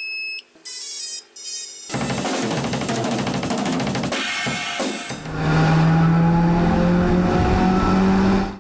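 Logo intro music sting: a few short electronic beeps and glitchy noises, then a dense burst of drums and cymbals from about two seconds in. It settles into a loud sustained low tone with slowly rising higher tones and cuts off suddenly near the end.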